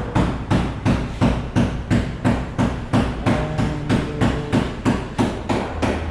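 Background music with a steady beat of about three sharp hits a second and a melody.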